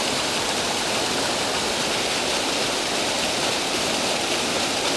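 Steady rush of fast-flowing water from a sewer plant's outfall spillway, pouring down a chute and churning into a creek pool.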